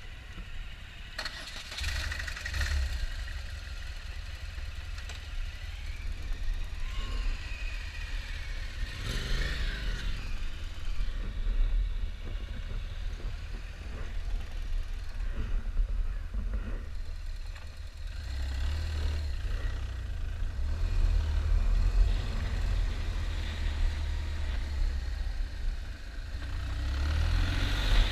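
BMW R1200GS boxer-twin motorcycle engine starting about two seconds in, then running at low revs as the bike pulls away slowly.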